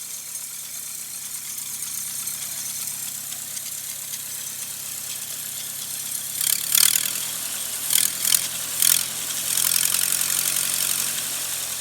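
The gasoline engine of a 1948 Lincoln SA-200 short-hood welder runs steadily. About halfway through, several loud, sharp hissing bursts come over it, followed by a steady hiss.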